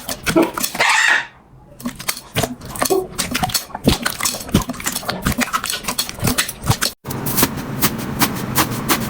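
Slime being squeezed and poked by hand, making a quick run of sticky clicks and pops. It cuts off sharply about seven seconds in, and denser crackling follows.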